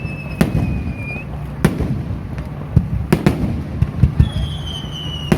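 Fireworks going off: a string of sharp bangs at uneven intervals, several close together near the middle. A high whistle falls slowly in pitch, fading out about a second in, and another starts near the end.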